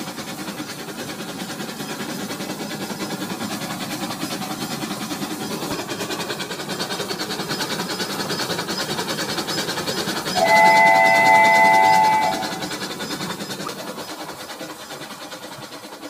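Battery-powered toy train running along plastic track: a steady whir of its motor and wheels with fine, rapid clicking. About ten seconds in, an electronic train whistle sounds for about two seconds as a chord of several steady tones.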